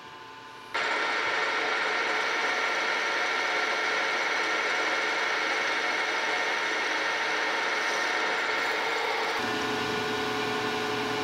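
Metal lathe running, turning a steel shaft with a carbide-insert tool on a light finishing cut at a slowed feed rate: a steady whine with cutting noise that starts abruptly about a second in. The sound changes near the end, with the higher tones dropping away and a lower hum taking over.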